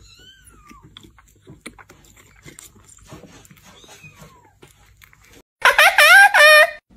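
A kitten suckling from a feeding bottle, with faint clicks and a faint mew. About five and a half seconds in, a white cat gives a quick run of loud meows.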